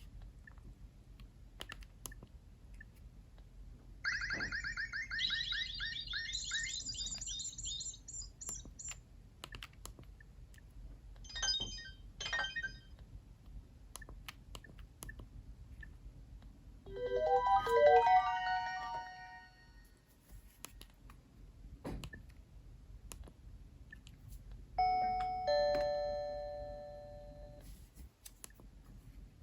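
A Nokia 7710 mobile phone playing a series of short ringtones and alert tones one after another, with pauses between them. First comes a rapid high trill, then two quick chimes, then a short run of notes, and near the end a few held chime notes. Faint clicks fall in the gaps.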